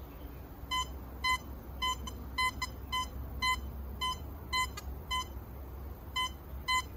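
Gold Hunter B75 metal detector giving a short, clear, single-pitched beep each time its search coil sweeps over a copper coin buried about 34 cm deep, roughly two beeps a second with a brief pause once. It is a strong target signal in the detector's J1 mode.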